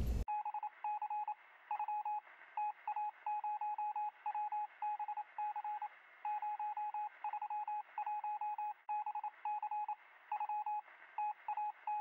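Morse code beeping: a single high tone keyed on and off in short and long beeps, sounding thin as if heard over a radio.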